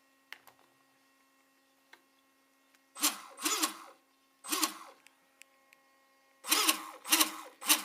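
RC jet boat's 2880KV brushless marine motor driving a K&B 28mm jet pump, revved in short throttle blips out of the water. The blips start about three seconds in, each rising and falling in pitch, with several in quick succession near the end.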